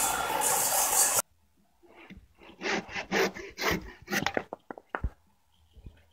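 Electric circular saw cutting through a timber beam, stopping abruptly about a second in. Then a handsaw finishing the crosscut with a run of quick rasping strokes that ends about five seconds in.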